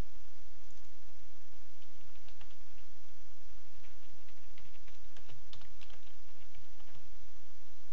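Typing on a computer keyboard: a run of quick keystrokes from about two seconds in until near the end, over a steady low hum.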